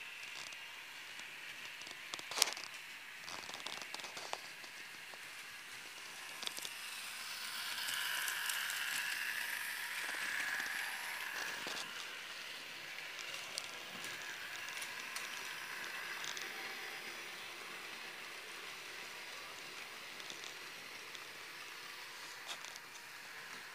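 H0-scale model train running on the layout's track: a steady rolling hiss that swells for a few seconds around the middle, with scattered small clicks, the sharpest about two and a half seconds in.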